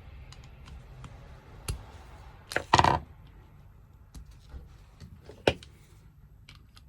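Small metal parts of a cam lock being worked by hand: a scatter of sharp clicks and taps, with one louder, brief scraping rattle about three seconds in.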